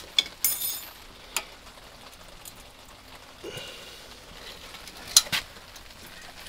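Steady hiss of falling rain, with a few sharp metallic clicks and taps in the first second and two more about five seconds in, as a small bolt is fitted by hand into the chrome exhaust tip to hold the baffle.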